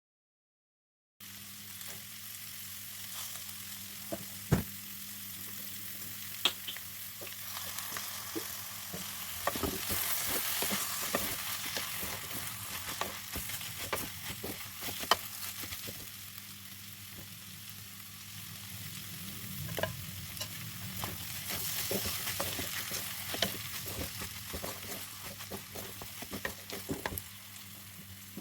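Food sizzling in hot oil in a pan, starting about a second in, with a cooking utensil clicking and scraping against the pan as it is stirred.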